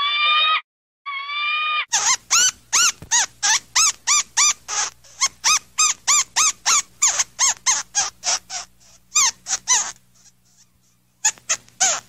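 Sound-effect animal calls: two short held calls that rise slightly in pitch, then a rapid run of short squeaky chirps, about four a second, for some eight seconds, with two more chirps near the end.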